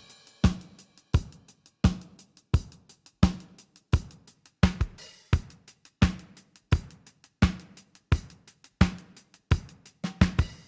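Drum kit groove playing at a steady tempo: a strong hit with a short low ring about every 0.7 seconds, with lighter hi-hat and cymbal strokes in between.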